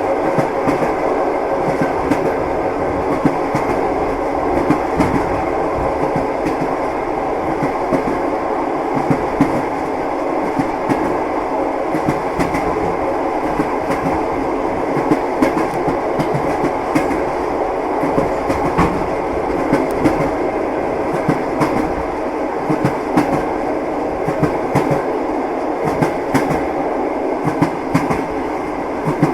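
Train wheels clattering on the rails: a steady running rumble scattered with many short, uneven clicks and knocks as the wheels pass over rail joints.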